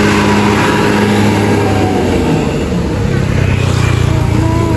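Hino RN285 tour bus's diesel engine running as the bus passes close by and pulls away, with tyre and road noise. A motorcycle engine runs near the end, when the low rumble swells.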